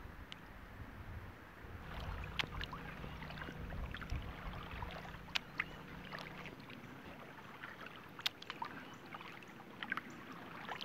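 Kayak being paddled: paddle strokes in the water with dripping and many small scattered clicks and ticks.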